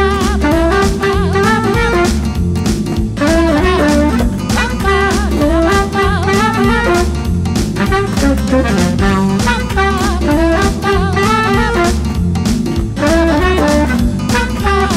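Tenor saxophone playing a melodic solo line over a disco-pop backing with drum kit and bass.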